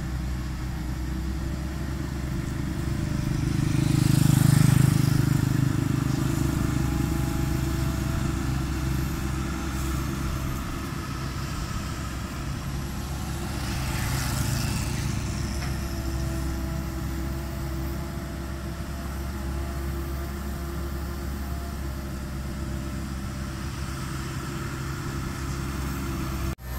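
Tracked excavator's diesel engine running steadily, swelling louder twice, about four and about fourteen seconds in.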